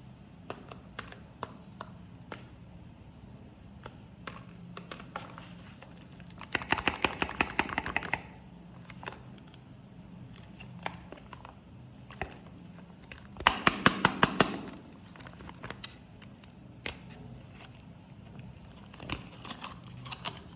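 Soap packaging being handled and torn open: scattered clicks and taps, with two bursts of rapid crackling tearing, one about six seconds in and one about thirteen seconds in, each lasting over a second.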